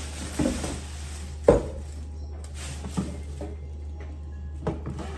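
Kitchen containers being handled and set down on a hard surface: four separate knocks and clunks, the loudest about one and a half seconds in, over a steady low hum.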